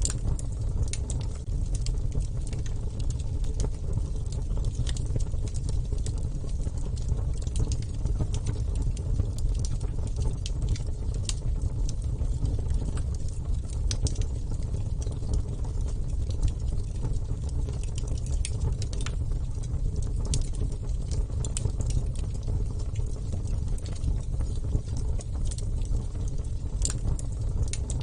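Wood fire burning steadily: a low rumble of flames with frequent irregular crackles and pops from the burning wood.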